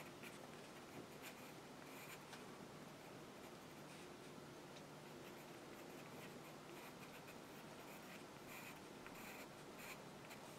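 Faint scratching of a fine-pointed tool making light strokes on rough watercolour paper, in short irregular touches.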